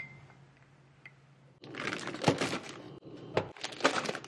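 A brief light clink at the start, then quiet; from about a second and a half in, loud irregular crackling and crinkling handling noise in quick bursts.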